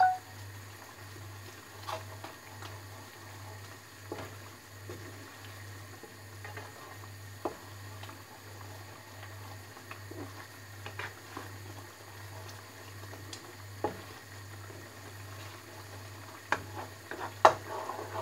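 Chili sauce simmering and bubbling in a frying pan, with a wooden spatula now and then knocking against the pan as it is stirred, more often near the end.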